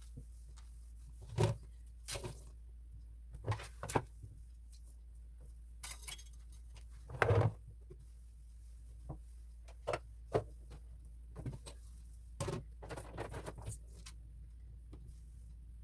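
Scattered light knocks, clicks and rustles of objects being handled, a dozen or so short separate sounds over a low steady hum, the loudest cluster about seven seconds in.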